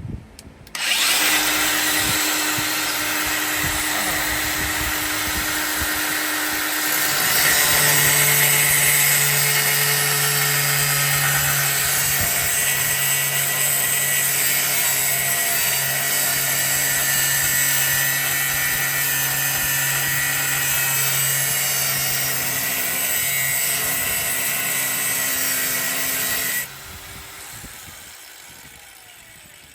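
Power tool cutting the notch out of the steel frame rail, running steadily for about 25 seconds. Its pitch drops under load about seven seconds in, and near the end it is switched off and spins down.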